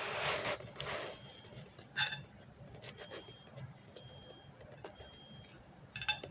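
Rustling for about a second, then scattered light clicks and one ringing clink about two seconds in, with a quick cluster of clicks near the end: small hard objects being handled.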